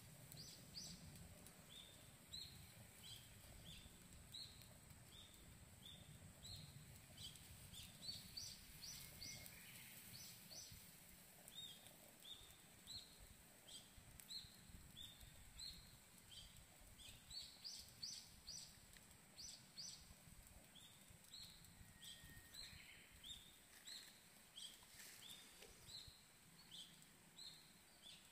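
Faint outdoor ambience of small birds chirping: short, rising high notes repeated every second or so, over a low rumble and a thin steady high tone.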